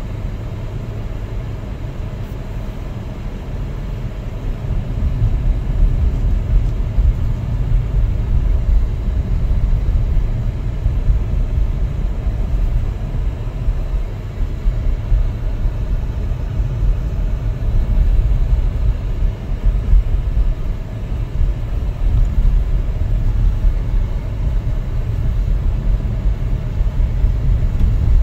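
Low road and engine rumble of a moving car heard from inside the cabin, getting louder about five seconds in.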